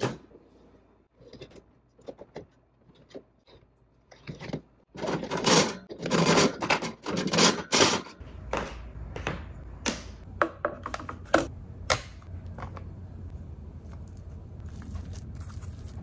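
A mini fridge's door and wire shelves being handled. Scattered clicks and knocks, then about three seconds of loud rattling and scraping about five seconds in. After that come lighter clicks and knocks over a low steady hum.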